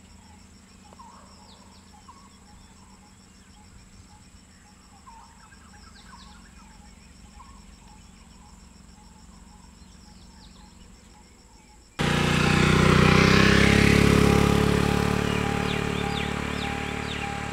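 Insects trilling in a fast steady pulse, with scattered short bird chirps. About twelve seconds in, a much louder sound with a steady tone cuts in abruptly and slowly fades.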